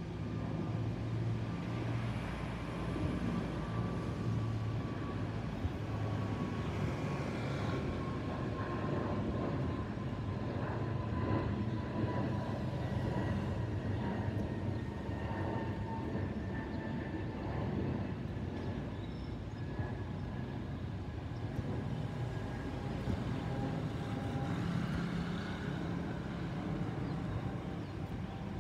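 Airbus A320neo's CFM LEAP-1A jet engines heard in a flyover: a steady jet rumble with a thin whine that slowly falls in pitch as the aircraft passes.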